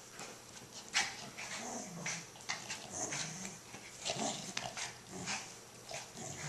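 A puppy and a miniature poodle play-fighting over a toy: low play growls come in a couple of stretches, among quick scuffling, rustling and bumping of the dogs on a comforter.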